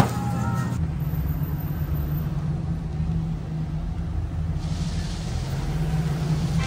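Steady low rumble of a car driving, with a light rush of hiss joining in past the middle.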